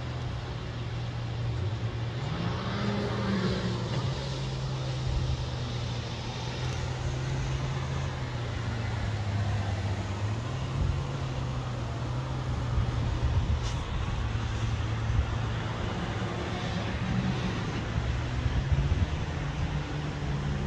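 Two jet skis running at high speed, a steady engine drone whose pitch rises and dips a few times as the riders work the throttle, over a wash of background noise.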